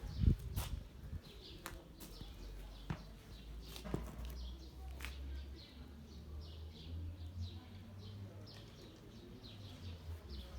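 Small birds chirping over and over. A sharp knock about a second in is the loudest sound, followed by a few fainter clicks, with a low rumble underneath.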